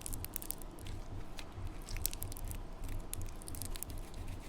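Slime being squished and stretched by hand, giving a run of small wet clicks and crackles.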